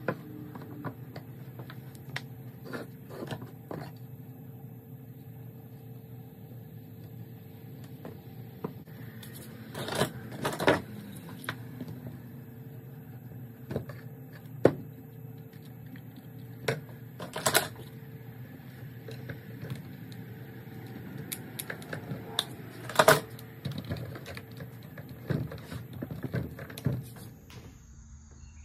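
Wood strips and orange one-handed bar clamps handled during a glue-up: scattered knocks of wood set down on the bench and clicks of the clamps being squeezed tight, over a steady background hum.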